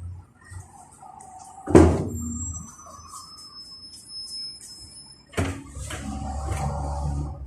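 Inside a 71-605A (KTM-5A) tram: a loud bang about two seconds in, thin high whining tones, then another knock about five seconds in followed by a low rumbling clatter of the running tram.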